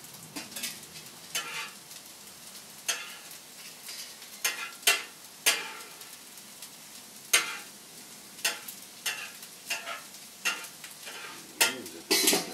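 Rice frying in a pan with a steady sizzle, while a utensil scrapes and knocks against the pan in irregular strokes as the rice is stirred to cook the moisture out of it.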